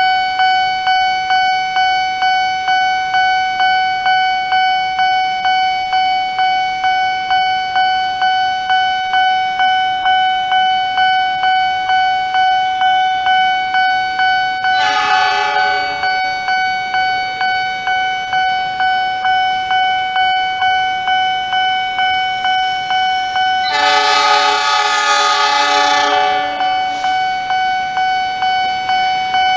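Nippon Signal electronic railroad crossing alarm ringing steadily, about two dings a second, warning that a train is approaching. A train horn sounds briefly about 15 seconds in, and again, longer and louder, about 24 seconds in.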